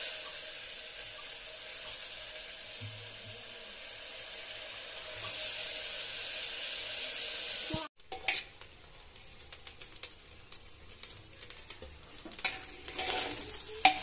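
Oil and rice sizzling steadily in an aluminium pressure cooker on the gas flame, louder about five seconds in, then cutting off abruptly. After that, a metal spatula stirs and scrapes the rice against the bottom of the cooker with scattered clicks, busier near the end.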